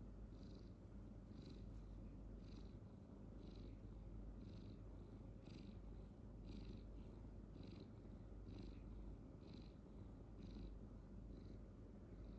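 Domestic cat purring softly and steadily, with a faint higher hiss recurring about once a second.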